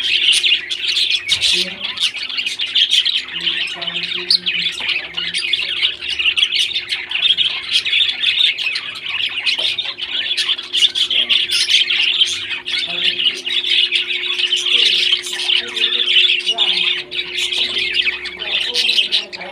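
A group of pet parrots chattering and squawking without a break, many quick, shrill calls overlapping.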